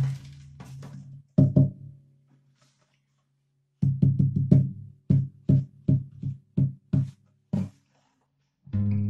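Steel-string acoustic guitar played through a portable speaker via a magnetic soundhole pickup. A low note rings at first and fades, then comes a run of short, damped low plucks, about three a second, and a strummed chord near the end.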